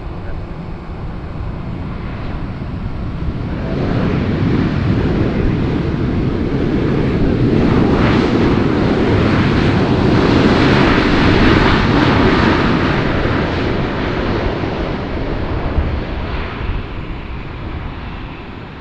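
Jet airliner on landing approach passing close by: a rushing engine noise that builds from a few seconds in, is loudest about halfway through, and eases off near the end.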